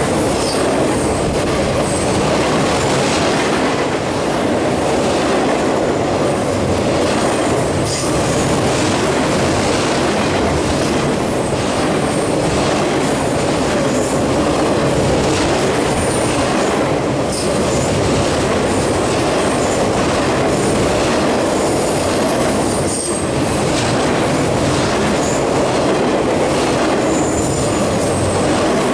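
Freight cars of a long trash train running past at high speed: a steady loud rumble of steel wheels on rail, with regular clicks over rail joints and occasional brief high wheel squeals.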